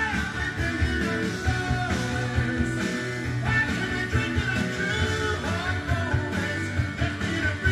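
Rock song with guitar, played back from a vinyl LP on a Pioneer PL-255 direct-drive turntable.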